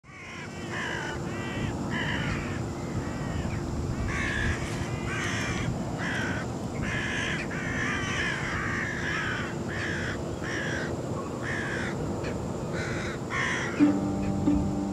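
Crows cawing over and over, harsh calls every half second to a second, over a low steady rumble. A few plucked guitar notes come in near the end.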